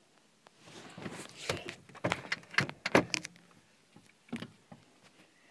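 Irregular clicks, knocks and rustling from handling inside a parked car, the loudest knocks bunched about two to three seconds in, then a few scattered ones.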